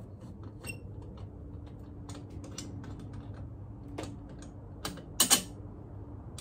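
Hand ratchet on a long extension clicking in short runs as a bolt on the muffler mount is run in. Two sharp metallic clacks come about five seconds in.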